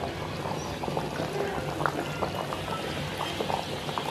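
Thick curry gravy simmering in a pan, its bubbles popping in small, irregular ticks over a low steady bubbling. Near the end, liquid is poured in from a steel bowl.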